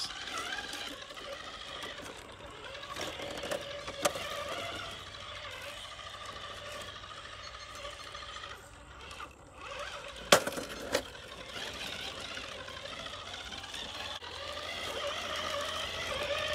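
RC rock crawler's electric motor and gear drivetrain whining as it creeps over rocks, the pitch drifting up and down with the throttle. A few sharp knocks of the truck on rock break through, the loudest about ten seconds in.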